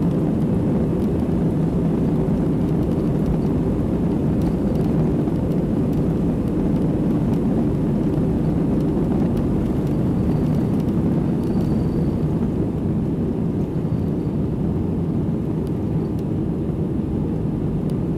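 Cabin noise of an Airbus A320-200 at take-off thrust, heard from a window seat over the wing: a steady, loud low rushing noise through the take-off roll and into the climb. It eases slightly in the last few seconds.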